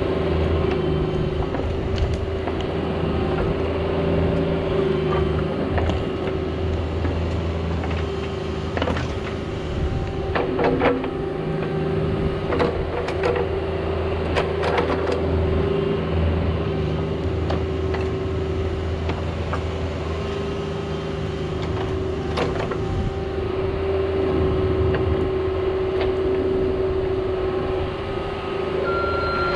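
Cat 304 mini excavator's diesel engine running steadily under load as it digs a trench, with scattered clanks and knocks from the bucket and linkage working in the soil. Near the end a reversing alarm starts beeping.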